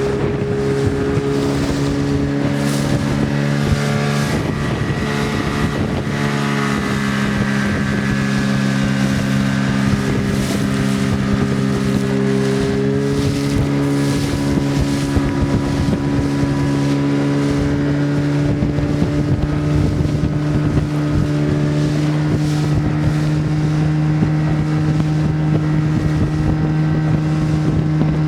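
Motorboat engine running steadily under way through swells, its pitch shifting slightly a few seconds in, with wind buffeting the microphone and water rushing past the hull.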